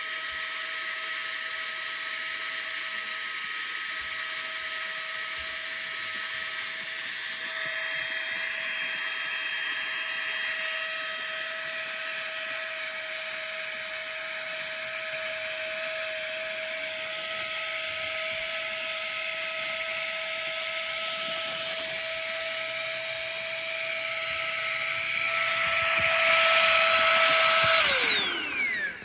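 FLEXTAILGEAR Tiny Pump 2 mini electric air pump running with a steady high whine, left to work on deflating. It gets louder about three seconds from the end, then winds down with a falling pitch as it switches off and stops.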